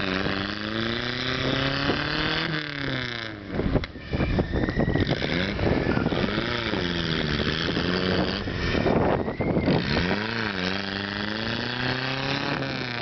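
A 4x4 pickup truck's engine revving up and down again and again as it bogs through deep mud and water on oversized tires, the wheels churning and throwing spray.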